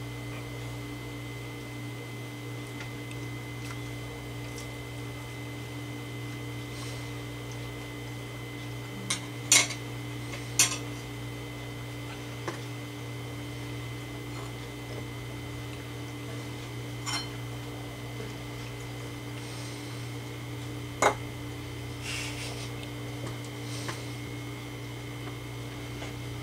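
Metal forks clinking and scraping against pie dishes and plates as people eat pie, scattered single clicks with the sharpest about a third of the way in and again near two-thirds, over a steady low room hum.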